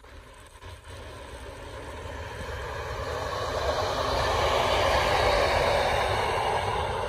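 NS Plan V (Mat '64) electric multiple unit passing on the rails: its running noise swells as it approaches, is loudest around four to six seconds in as it goes by, then starts to fade.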